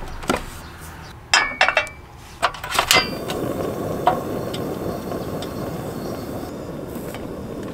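Portable gas stove and metal pan clanking and clinking as they are set down and the pan placed on the grate, then a sharp ignition click about three seconds in and the steady hiss of the lit burner flame.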